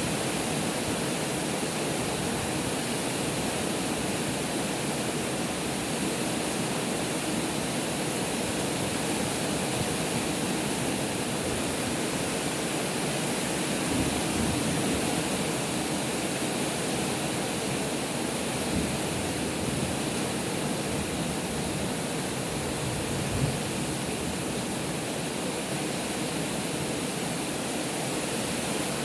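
Heavy rain pouring down in a steady, dense hiss, with no let-up.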